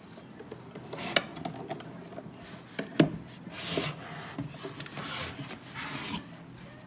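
Wooden chest being handled: wood rubbing and scraping against wood, with two sharp knocks about one and three seconds in.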